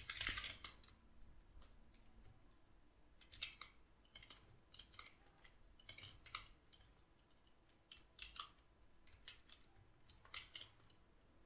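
Faint computer keyboard typing: short clusters of key clicks with pauses between them.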